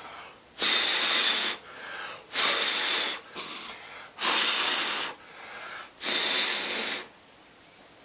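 A person blowing hard by mouth into an open laptop's dusty interior to clear the dust: four long puffs of air, each about a second, with quieter breaths drawn in between.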